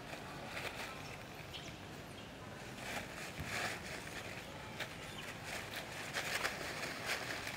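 Dry leaf litter rustling and crackling in irregular bursts as macaques scuffle and shift about on the ground, with a few sharper crackles near the end.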